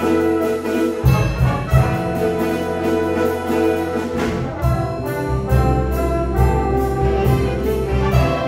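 High school jazz big band playing live, with saxophones, trombones and trumpets sounding together over a drum kit keeping a steady beat.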